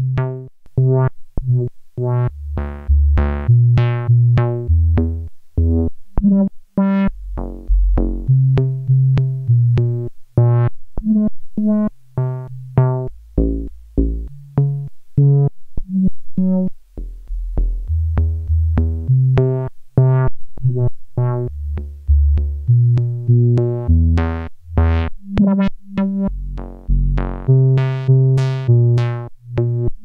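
Eurorack modular synthesizer voice playing a clocked run of short notes at randomly changing pitches, about two to three a second. Its filter cutoff is modulated by a control voltage, so each note comes out brighter or duller than the last.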